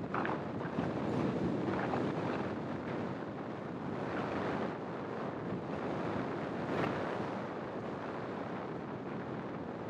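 Wind rushing over the microphone of a small camera mounted on the outside of a moving car, with road noise underneath and a few brief louder gusts.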